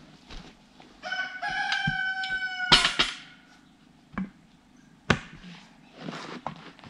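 A rooster crowing once, a long call of about two seconds. A loud sharp knock cuts it off, and a second sharp knock comes about two seconds later.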